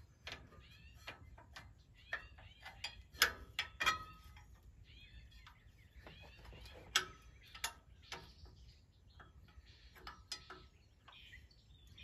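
Scattered sharp metal clicks and clinks of a wrench on the generator's belt-adjusting bolt and bracket as the belt is being tightened, with birds chirping faintly in the background.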